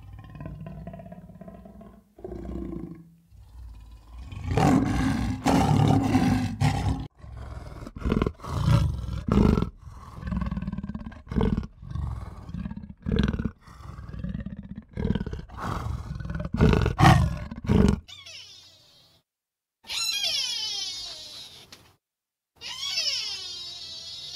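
A big cat growling and roaring in a long series of rough, loud calls. After a short pause near the end come two high calls, each falling in pitch.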